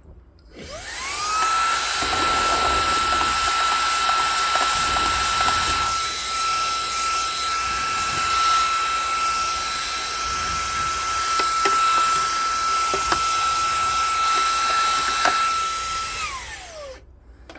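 Xiaomi mini cordless handheld vacuum cleaner switched on, its motor spinning up to a steady high whine. It runs for about fifteen seconds with a few light knocks. Then it is switched off, and the whine falls away as the motor winds down near the end.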